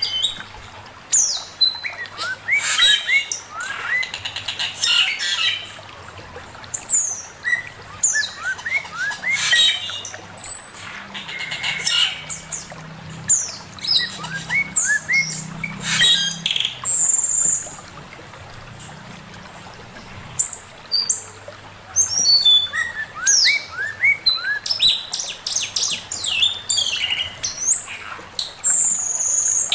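Male poksay mandarin, a laughingthrush, singing a long, varied song of quick chirps, rising whistled slurs and sharp falling notes, with two short lulls.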